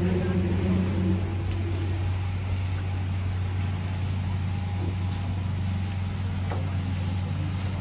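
Truck engine idling steadily, a continuous low hum, with faint snaps and rustling of leafy branches being loaded.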